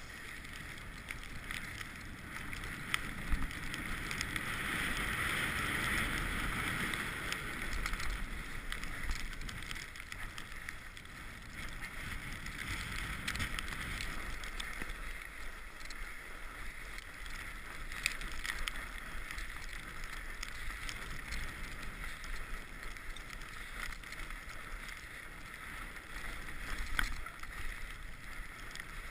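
Mountain bike rolling along a trail: steady tyre and wind noise on an action camera, swelling for a few seconds early in the ride, with scattered clicks and rattles from the bike.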